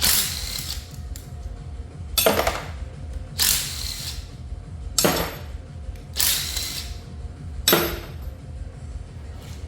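Power tool with a socket running bolts out of a Tesla Model 3 drive unit's aluminium housing in six short bursts, one every second or two.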